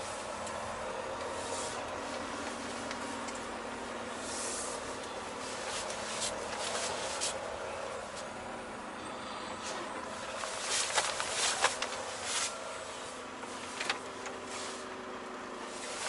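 Cab noise of a Volvo VNL860 semi-truck creeping through a lot at low speed: a steady engine and road hum, with a few short clicks and rattles a little after the middle.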